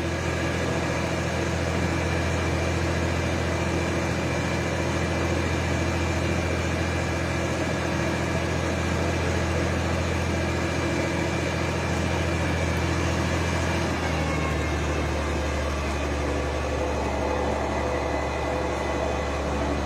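A large engine running steadily at idle, its pitch dropping a little about fourteen seconds in.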